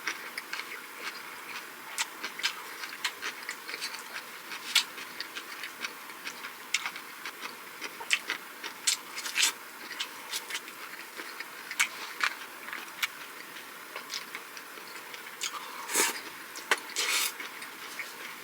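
Close-miked eating sounds: irregular wet chewing and mouth clicks, with two longer, louder bursts near the end.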